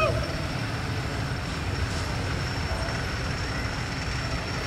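Steady rumble of road traffic, with a thin, steady high-pitched whine held over it.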